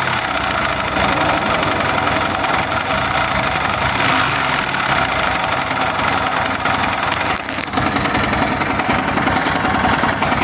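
Yamaha R15 V3's 155 cc single-cylinder four-stroke engine running at low revs with a knocking, jolting beat instead of a smooth idle. The mechanic puts this down to excessive free play in the engine's parts, as if something has come loose, left after a poorly done earlier rebuild.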